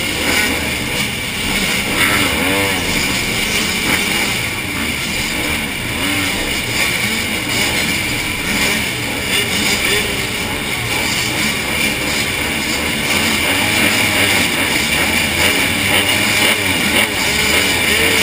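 Several motocross bikes idling and blipping their throttles side by side on the start line before the gate drops: a dense mix of engine noise with repeated rising and falling revs. The nearest engine is the rider's own Honda CRF150R, a 150 cc four-stroke single.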